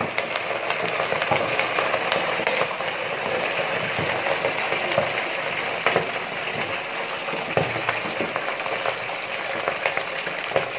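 Rabbit deep-frying in a large stainless steel pot of hot oil: a steady, dense sizzle and bubbling with many small crackles, the oil foaming hard around the freshly added meat.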